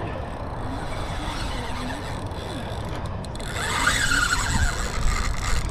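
Wind rumbling steadily on the microphone. About three and a half seconds in, a spinning reel's drag squeals for about two seconds as a big stingray pulls line off it.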